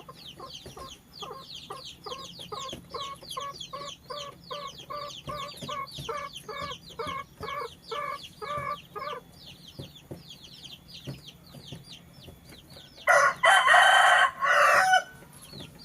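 Chicken clucking in a steady run of about two clucks a second, then near the end a rooster crowing once, loud and about two seconds long. High, quick chirping goes on the whole time behind them.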